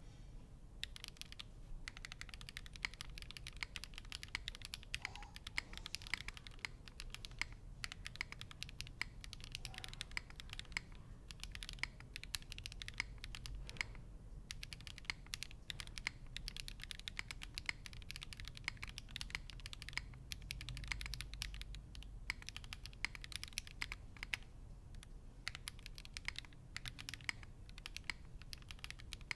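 Leaf65 mechanical keyboard, top-mounted with an aluminium plate, no case foam and lubed V2U switches, being typed on: a steady fast clatter of keystrokes, broken by a few brief pauses.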